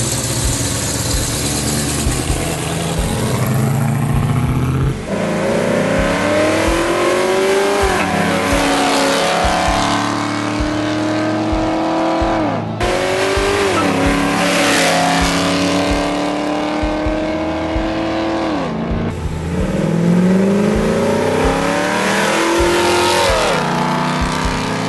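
Rebuilt 289 V8 of a 1967 Ford Mustang with a Magnaflow stainless dual exhaust and cross pipe. It rumbles low for a few seconds, then accelerates hard, its pitch climbing and dropping back at each upshift of the automatic transmission, over several passes.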